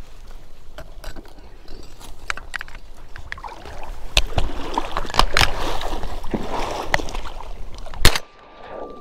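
Rustling, cracking and sloshing of someone pushing through dry cattails and reeds in water, with many small clicks and snaps. About eight seconds in, a single loud shot from a 28 gauge shotgun, the loudest sound, after which the rustling stops abruptly.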